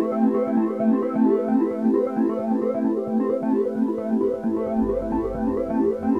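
Calm electronic background music: quick, repeating keyboard notes, with a deep bass coming in about four seconds in.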